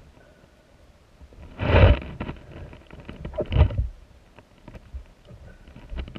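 Underwater river sound picked up by a camera submerged on the riverbed: a muffled low rumble of moving water, with two louder surges about two seconds in and again near three and a half seconds, and a few faint clicks.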